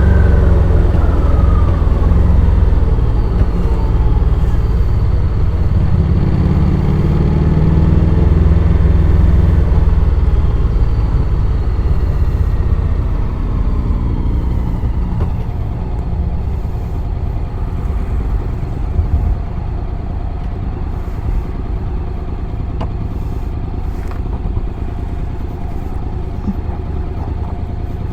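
Honda X-ADV 750's parallel-twin engine heard from onboard while riding, with its pitch falling in the first few seconds. It runs loudly for about ten seconds, then quieter and steadier from about twelve seconds in as the rider eases off.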